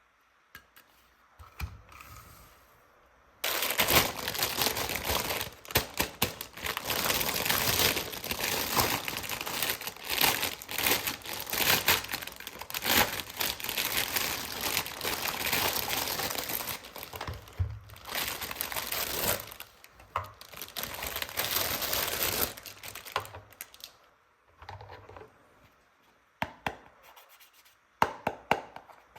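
Plastic packaging being crinkled and torn open by hand. After a few quiet seconds comes a long, dense run of rustling and crackling, which thins out near the end into a few scattered clicks and taps.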